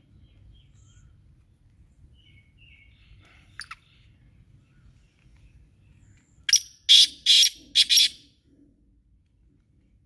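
Male black francolin calling: a single harsh, grating call of four loud rasping notes in quick succession, about six and a half seconds in. Faint bird chirps and a short click come before it.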